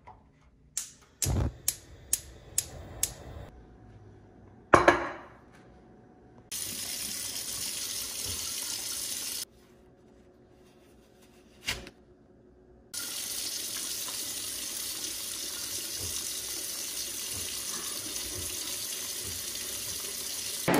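Gas range igniter clicking about six times as a burner knob is turned, then a single loud thump about five seconds in. After that, two long stretches of steady rushing noise of running water that start and stop abruptly, with a quiet gap between them.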